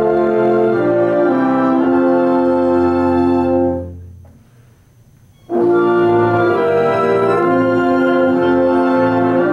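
Small instrumental ensemble playing slow, sustained chords, moving from chord to chord. About four seconds in they release together and the sound dies away; after a pause of about a second and a half they come back in together on a new chord.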